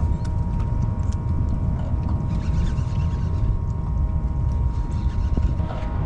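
Steady low rumble of wind and water around a small drifting boat, with a faint steady hum and scattered light clicks.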